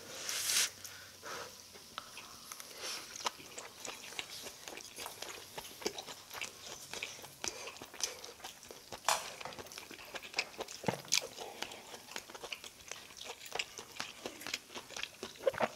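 Close-miked eating: chewing a mouthful of grilled beef, scallop and mushroom, full of sharp wet mouth clicks and smacks. There is a louder noisy burst about half a second in.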